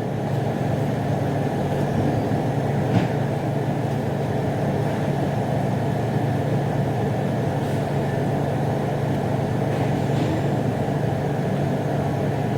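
Steady low mechanical hum, with a couple of faint short taps about three and ten seconds in.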